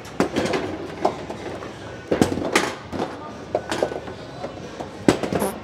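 Skee-ball balls rolling up the wooden lane and knocking against the ramp and the scoring rings: about five sharp knocks over a rolling rumble.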